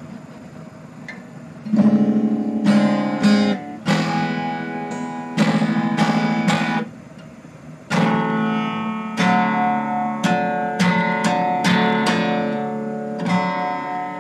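Black Harley Benton HBD-120CE acoustic-electric guitar being strummed: a series of ringing chords starting about two seconds in, with a short break midway. The player thinks the new guitar is a little out of tune.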